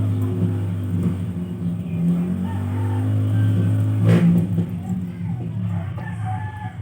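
A motor engine running with a steady low hum, briefly louder about four seconds in, with faint chirps over it.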